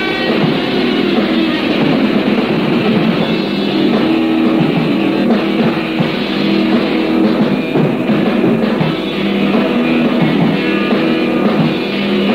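Lo-fi 1984 underground metal demo recording: distorted electric guitars and bass play a riff over a drum kit. It sounds dull and muffled, with no treble.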